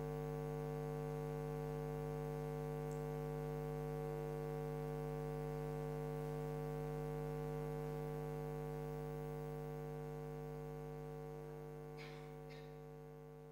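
Steady electrical hum, a buzzy tone with many overtones and no change in pitch, slowly fading out over the last several seconds. A couple of faint clicks come near the end.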